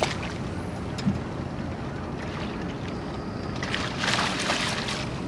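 Steady low rumble of wind and water around a small fishing boat, with a short rush of noise about four seconds in.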